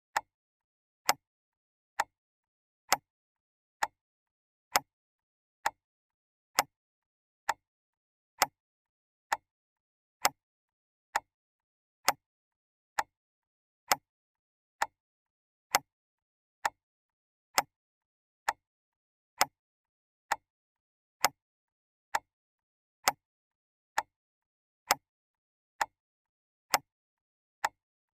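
A clock ticking: sharp, evenly spaced ticks a little faster than one per second, with silence between them.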